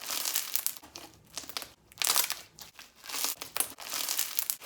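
Irregular bursts of crinkling and crackling, a close-up handling sound in a small room.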